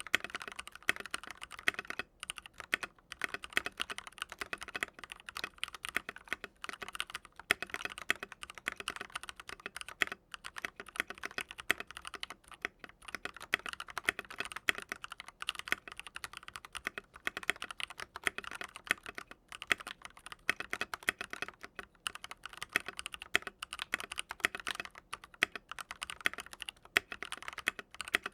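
Mechanical keyboard with linear switches being typed on steadily, a fast run of keystroke clacks with no pauses longer than a moment.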